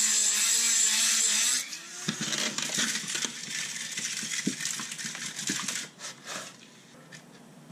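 Dremel rotary tool grinding a steel weld seam, a high steady whine that cuts off about a second and a half in. Lighter irregular scraping and clicks follow and die away.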